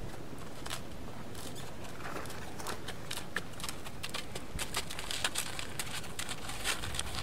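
Hooves of a saddled yearling horse moving on the dirt of a round pen: an irregular run of short clicks and soft thuds that grows thicker after about two seconds.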